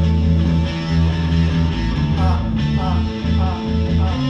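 A rock song playing, with guitar over a steady bass.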